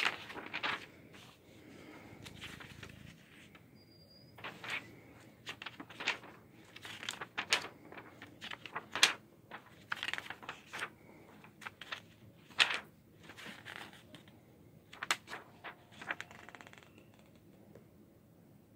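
Paper pages of a comic book being turned by hand, giving short rustles and flaps at irregular intervals.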